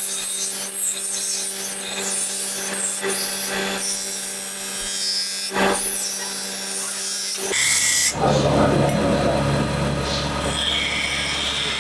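Steel knife blade ground against a spinning grinding wheel: a high, hissing scrape over the steady hum of the wheel's motor. About seven and a half seconds in the grinding stops abruptly, and a lower, steady rumble of the running machine takes over.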